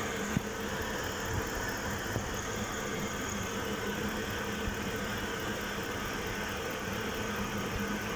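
2002 GMC Yukon's V8 engine idling steadily while still cold and warming up, heard close under the hood, with a steady hum and one small click just after the start.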